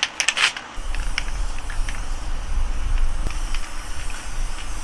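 Aerosol can of Gorilla Glue spray adhesive hissing in short sprays onto flocked artificial wreaths, over a steady low rumble. A few sharp clicks come in the first second.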